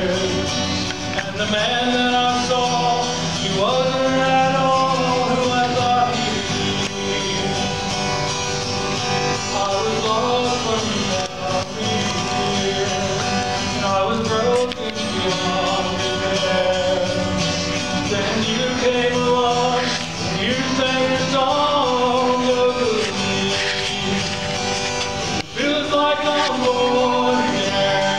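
A man and a woman singing a song together into microphones, with a strummed acoustic guitar accompanying them.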